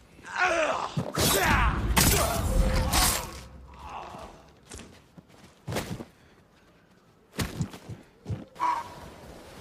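Katana sword combat sound effects: a quick run of blade swishes and clashing strikes over the first three seconds or so, then a few single hits spaced out toward the end.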